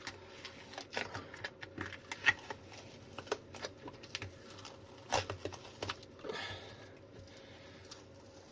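Rubberized material being pulled and peeled off the inside of a lithium battery pack, giving an irregular run of sticky crackles and ticks, with a short tearing rasp about six seconds in.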